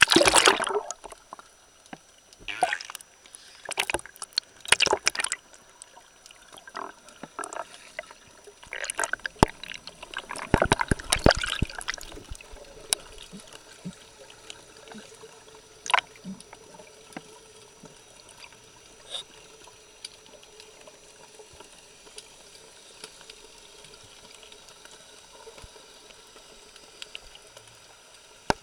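Water and bubbles heard through a camera going under the sea surface: a loud rush as it plunges under, then bursts of bubbling and water movement over the next dozen seconds. After that comes a faint steady underwater hiss with a few sharp clicks.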